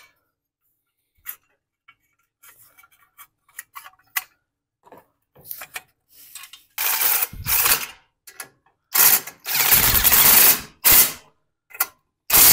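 Small metal engine parts being handled and set in place with light clicks, then a cordless DeWalt drill-driver running in short bursts to drive in the muffler bolts on a Tecumseh engine. The longest run lasts about two seconds near the middle of the second half.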